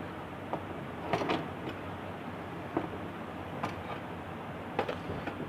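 Scattered light clicks and taps from handling the LED TV's speaker connections, over a steady background hiss.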